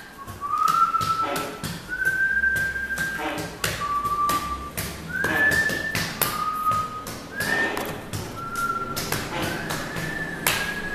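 A string of clear whistled notes at shifting pitches, each held about half a second to a second, with many sharp taps and clicks between them.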